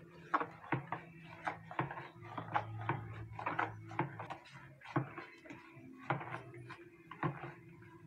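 Plastic spoon stirring a foamy soap-and-softener mixture in a plastic basin, knocking against the sides about twice a second, while liquid softener is poured in.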